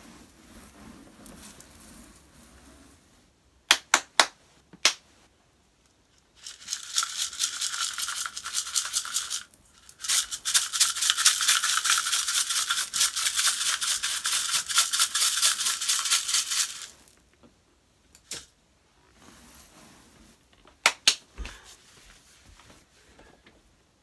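Dry, crunchy debris poured and shaken from above onto a carpet, a dense gritty rattle in two long pours with a brief break between them. A few sharp clicks come before the pouring and again near the end.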